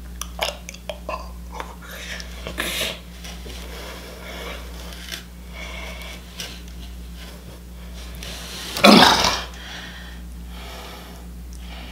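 A person burps loudly once, about nine seconds in, after a few soft clicks and rustles from handling food. A steady low electrical hum runs underneath.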